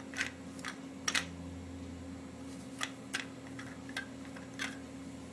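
Scattered light clicks and taps, like small toys being handled, with a few louder clicks about a second in and near three seconds, over a steady low hum.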